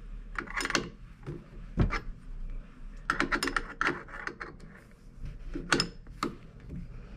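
Open-end wrench clicking and clinking on the collet nut of a DeWalt DWP611 router as the collet is tightened onto a bit. The clicks come irregularly, some in quick clusters, with one heavier knock about two seconds in.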